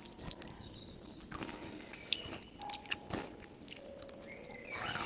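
Someone biting and chewing crunchy food: irregular sharp crunches and clicks.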